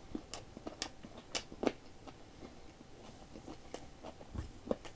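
Close-up chewing of boiled pork belly with pork cartilage in it: irregular crisp crunching clicks as the cartilage breaks between the teeth.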